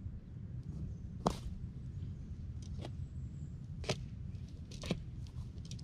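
Outdoor ambience: a steady low rumble with four sharp ticks scattered through it, the loudest about a second in.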